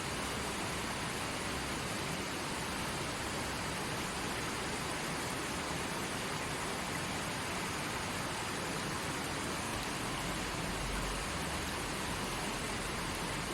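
A forest stream running steadily: an even, unbroken rush of flowing water.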